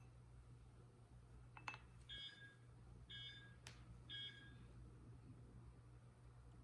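Three short electronic beeps about a second apart, each made of several steady pitches. A click comes just before the first beep, and another sharp click falls between the second and third.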